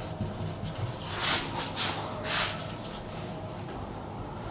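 Marker pen writing on a whiteboard: about three short scratchy strokes between one and two and a half seconds in.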